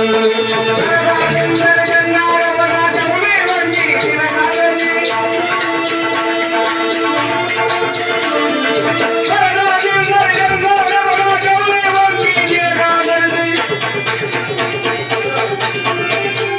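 A man sings into a microphone over electronic keyboard chords, with a fast, steady jingling beat from hand-held percussion.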